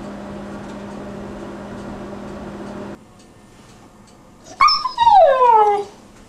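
A Newfoundland puppy gives a short yip and then a drawn-out, howl-like call that slides down in pitch, about four and a half seconds in. Before it, a steady hum stops about three seconds in.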